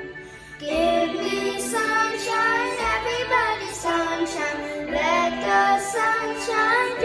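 A song with children singing over musical accompaniment, briefly quieter at the start.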